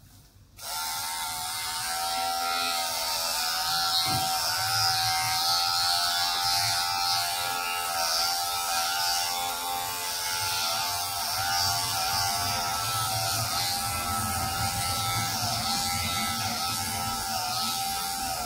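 Electric hair clippers switching on and running with a steady buzz while shaving a man's head, the pitch dipping briefly now and then.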